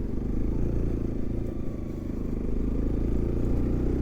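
Bajaj Pulsar NS200 motorcycle's single-cylinder engine running steadily as the bike is ridden along.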